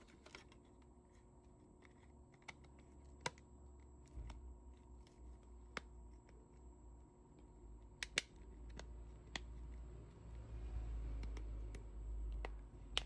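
Plastic back cover of a Samsung Galaxy M13 being pressed onto the phone's frame: scattered sharp clicks as its clips snap into place, two in quick succession about eight seconds in, over faint rubbing and handling noise.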